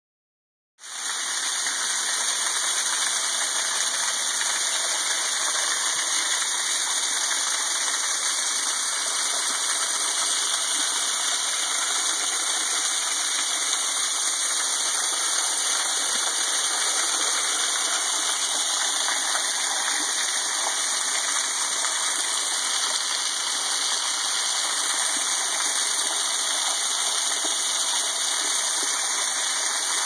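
Thin waterfall falling from a rock overhang and splashing onto a stone ledge: a steady hiss of falling water that starts about a second in.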